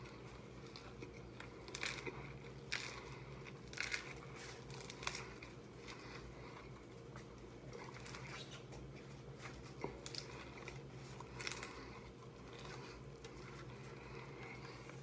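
Crisp hard-shell tacos being bitten and chewed fast, with several sharp shell crunches, the loudest about two to five seconds in, over a steady low hum.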